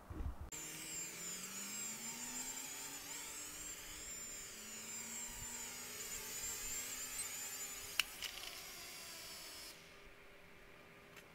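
Toy quadcopter's small motors and propellers whining in flight, the pitch wavering as the rotor speeds change. A single sharp click comes about eight seconds in, and the whine stops shortly before the end.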